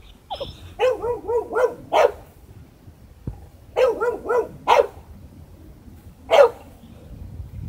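A dog giving quick runs of high, wavering whining yips, four or five in a row, each run ending in a sharp bark; near the end comes one lone bark.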